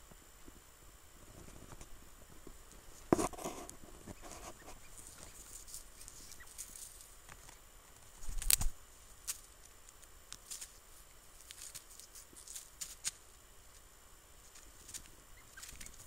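Quiet rustling with scattered small clicks. A short burst of rustling comes about three seconds in, and a louder thump about eight and a half seconds in.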